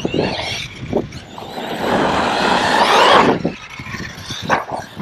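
Arrma Kraton 6S RC truck's brushless motor whining up in pitch as it accelerates, with a rushing noise, dropping off about three and a half seconds in. A shorter burst follows. Wind rumbles on the microphone throughout.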